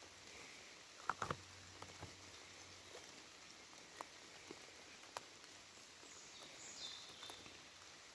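Quiet forest ambience: a faint steady hiss with a few scattered small clicks and crackles, the loudest cluster about a second in, and a faint high chirp near the end.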